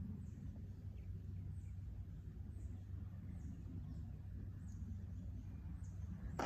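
A bird repeating a short, high, falling chirp about once a second, faint over a steady low rumble.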